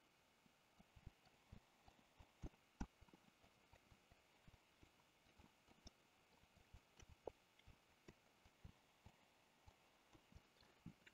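Faint, quick, irregular clicking of a computer mouse and keyboard, with near silence between the clicks.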